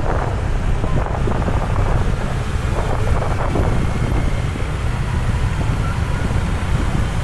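Traffic noise in a jam of slow-moving vehicles, with a steady low wind rumble on the microphone.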